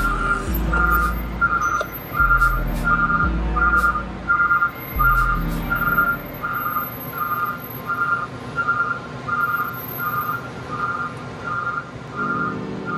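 Vehicle backup alarm beeping steadily, about one and a half beeps a second, with background music heard in the first half and again near the end.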